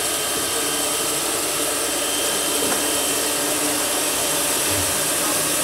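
Steam hissing steadily from two-foot gauge steam locomotive No. 9, escaping low around its cylinders while the engine stands still.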